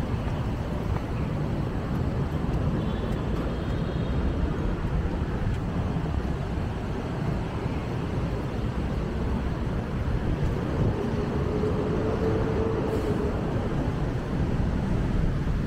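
Steady outdoor city ambience: a low rumble of passing traffic mixed with wind buffeting the microphone, with a faint hum briefly about twelve seconds in.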